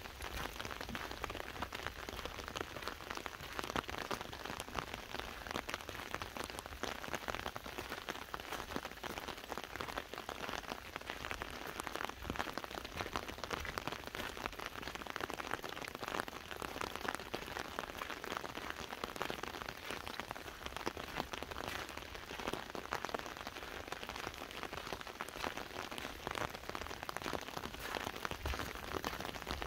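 Steady rain pattering on an umbrella overhead, a dense, even tapping of many drops, recorded binaurally.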